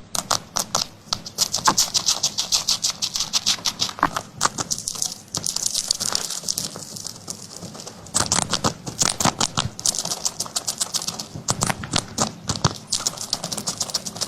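Cat eating a lickable stick treat: rapid wet licking clicks, several a second, in runs with a quieter stretch between about five and eight seconds in.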